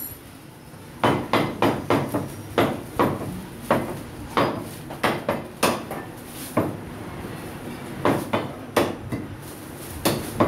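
A meat cleaver chopping on a wooden butcher's block: a string of sharp knocks, roughly two a second, starting about a second in, with a short pause a little after halfway.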